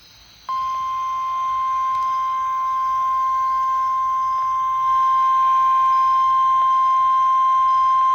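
NOAA Weather Radio warning alarm tone: a single steady 1050 Hz tone that starts about half a second in and gets a little louder about five seconds in. It is the signal that a warning message, here a tornado warning, is about to be read.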